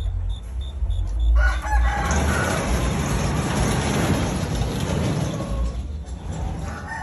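Caged chickens calling together: pitched calls begin about a second in and swell into a dense chorus of clucking and crowing.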